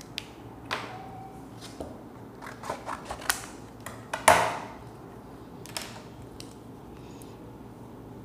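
Sheets of paper and card being handled and laid down on a paper-covered board: a string of short rustles and taps, the loudest and longest a crisp rustle about four seconds in.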